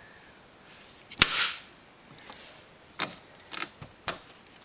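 Sharp cracking knocks of glass being struck: the first, about a second in, is the loudest and leaves a brief ring, and three lighter ones follow near the end.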